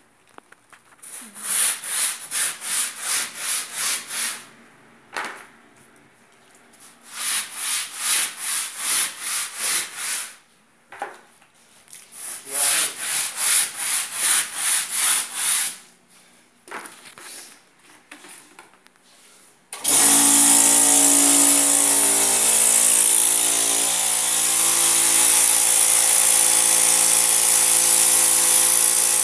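A brush scrubbing sofa upholstery in fast back-and-forth strokes, about three or four a second, in three bursts of a few seconds each with short pauses. About twenty seconds in, an electric motor switches on suddenly and runs steadily and loudly.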